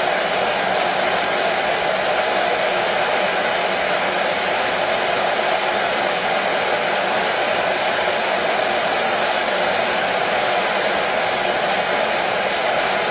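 Household appliance running with a steady, even whir and rushing hiss that never changes, with no rhythm or break.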